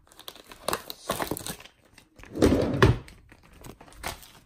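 A bag being handled, crinkling and rustling in irregular bursts, with a louder bump-like rustle a little over two seconds in.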